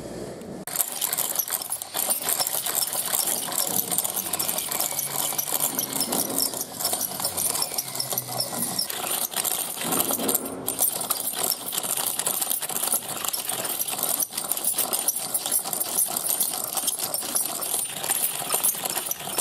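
Hand-held serrated coconut scraper grating fresh coconut flesh out of a half shell, in fast, repeated rasping strokes. It starts about a second in.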